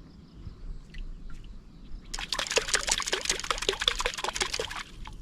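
Water splashing hard and fast for nearly three seconds, starting about two seconds in and stopping abruptly.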